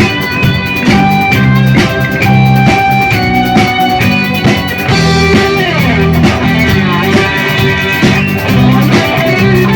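Rock band playing an instrumental passage between sung verses: guitar melody with held notes over bass and a steady drum beat.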